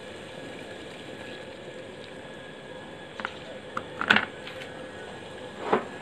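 Water boiling in a stainless steel pot on a gas burner, a steady hiss, broken in the second half by a few short knocks or clinks, the loudest about four seconds in and another near the end.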